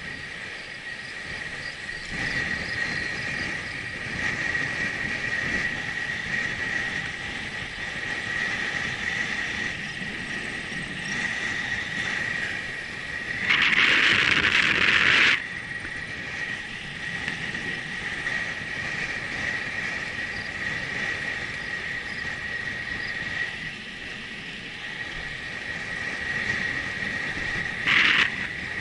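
Wind and tyre noise from a bicycle rolling along a paved path at cycling speed, with a steady high whine throughout. About halfway through, a louder hissing rush lasts a couple of seconds, and a shorter one comes near the end.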